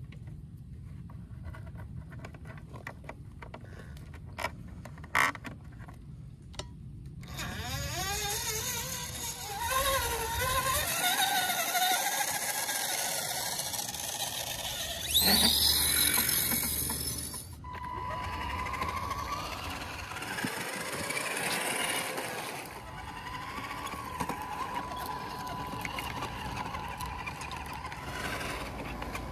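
Electric motor and gearbox of a radio-controlled truck whining as it drives over dirt, the pitch rising and falling with the throttle. The first seven seconds are quieter, with a few clicks, and the sound is loudest for a couple of seconds about halfway through.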